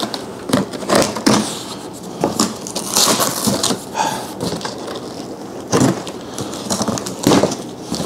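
Corrugated cardboard box flaps being pulled open and folded back: irregular scraping and crinkling of cardboard, with a few sharper knocks.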